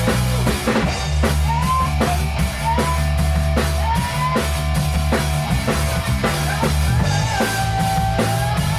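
A rock band playing together: a drum kit keeps a steady beat under bass and electric guitar. A high note slides upward briefly three times, then holds longer near the end.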